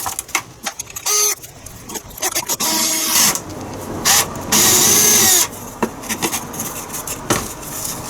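Electric drill with a 12 mm flat spade bit boring a hole, run in several bursts with pauses between, the longest near the middle, the motor's pitch shifting as the trigger is squeezed and the bit cuts.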